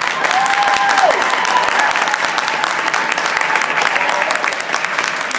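Spectators applauding, with hand claps close by, and voices calling out over the clapping.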